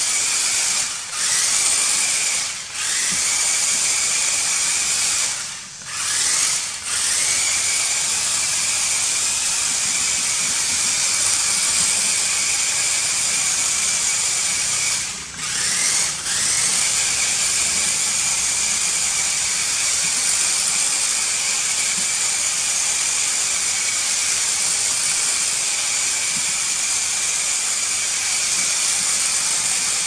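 Electric drive motors and gears of a toy four-wheel-drive remote-control rock crawler whining steadily. The whine cuts out briefly a few times in the first half and rises back up in pitch each time it starts again.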